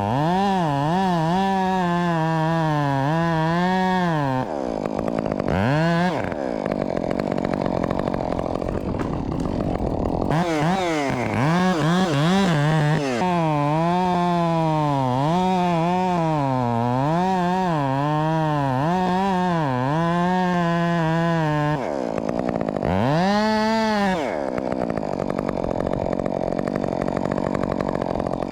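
Two-stroke Husqvarna chainsaw running at full throttle and cutting wood, its engine pitch repeatedly dipping and recovering as the chain bites. The cutting breaks off twice, with a quick rev up and back down about 6 seconds in and again near the end.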